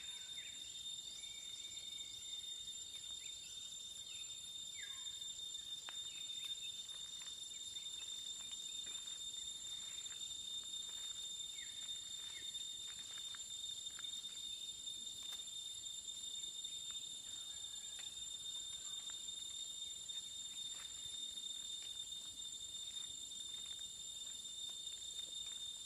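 A continuous high-pitched whine from forest insects, held on one steady pitch, with many short falling chirps scattered over it. The uploader takes it for exotic insects.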